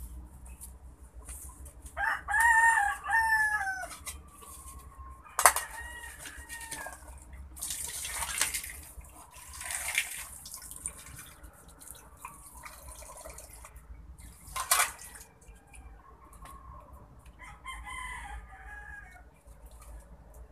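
A rooster crows a couple of seconds in and again, more briefly, a few seconds later. In between, water from a hand pump gushes and splashes into a metal pan as fish are rinsed. A sharp knock comes near the end.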